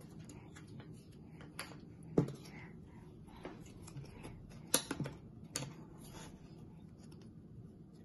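Jigsaw puzzle pieces being handled and pressed into place on a table: scattered light clicks and taps, the loudest a little over two seconds in and a quick cluster around the middle.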